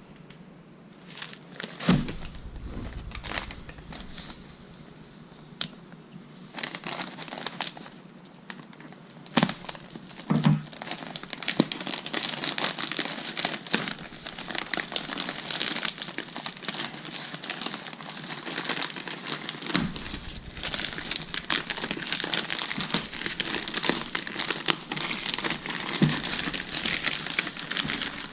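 Packaging being handled and opened: crinkling and rustling with a few knocks. The crinkling becomes dense and continuous from about ten seconds in.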